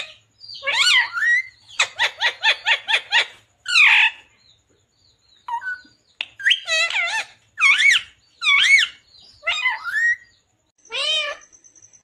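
Pet parrot calling: a string of loud, curving squawks, with a fast run of about seven short notes two to three seconds in, a short pause near the middle, then more squawks.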